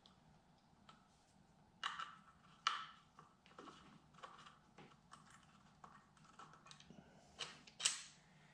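Faint, scattered small metal clicks and taps as a motorcycle's stock mirror is unscrewed from its handlebar mount and a hex key is handled. There are a few louder clicks about two seconds in and again near the end.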